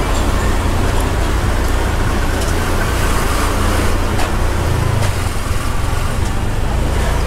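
A rental motorcycle's engine running steadily as it rides slowly along a street, with a constant low rumble and wind rush over it.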